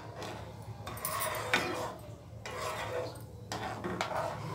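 Metal spoon stirring and scraping through soft cooked mango pieces in sugar syrup in a nonstick pan, in several strokes, with a sharp clink of the spoon against the pan about one and a half seconds in.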